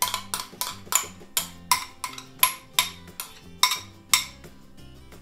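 Metal spoon scraping and tapping against a glass bowl: about a dozen sharp clinks, two or three a second, stopping about four seconds in. Background music plays underneath.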